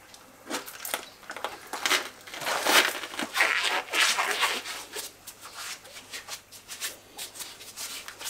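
A pair of black work gloves being pulled on and worked down over the hands, in a run of irregular rubbing and crinkling. The busiest stretch is from about two to four and a half seconds in.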